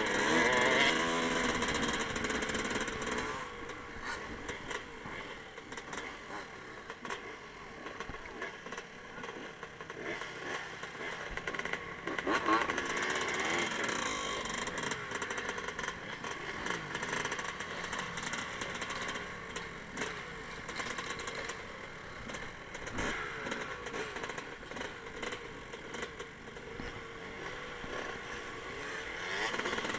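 Honda dirt bike engine running as the bike rides over rough dirt, its pitch rising and falling with the throttle. The revs are strongest in the first few seconds and again about twelve seconds in.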